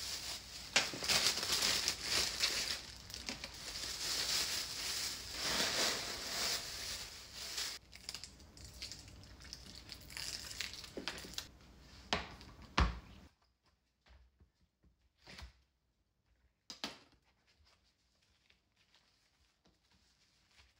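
Thin plastic produce bag crinkling and rustling as it is handled and filled with greens. About 13 seconds in there is a single knock on the counter. After that it is mostly quiet, with a few light clicks and a soft rustle of kitchen paper near the end.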